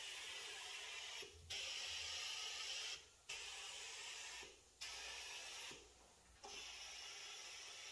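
Pressurised spray hissing in repeated bursts, each starting abruptly and lasting a second or more, with short pauses between.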